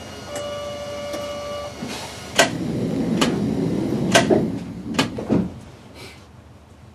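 Inside a stopped streetcar: a steady electronic beep for about a second and a half, then four sharp mechanical clacks about a second apart with a rattle between them, from the tram's onboard equipment.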